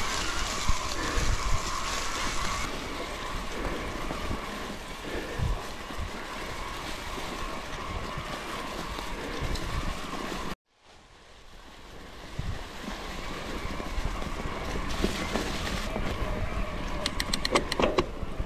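Wind rushing over a GoPro's microphone, with rolling noise and occasional knocks from a bicycle being ridden. About ten seconds in the sound cuts out almost completely and then fades back up. A quick run of sharp clicks comes near the end.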